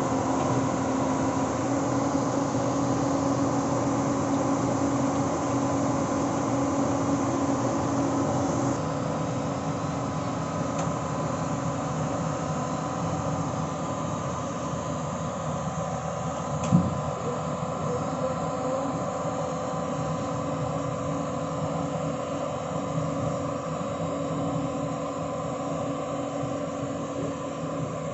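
Excavator's diesel engine running steadily, with one short sharp knock a little past the middle.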